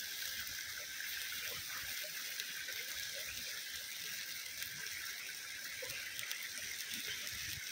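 Stream water running steadily, an even rushing hiss.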